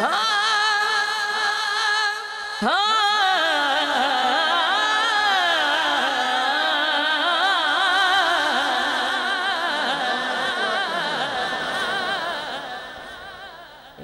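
A man singing a naat into a microphone. He holds long, drawn-out notes with a wavering, ornamented pitch, starts a fresh phrase with an upward sweep about two and a half seconds in, and fades out near the end.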